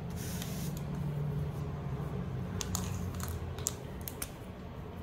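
Low, steady room hum with a few soft, short clicks and rustles scattered through it.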